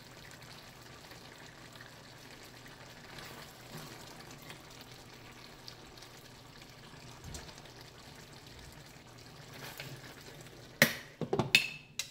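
Curry stew simmering in a stainless steel pan with a faint steady sizzle, and a metal ladle stirring and scooping in it. Near the end, several loud sharp clanks as the glass lid is set down on the pan.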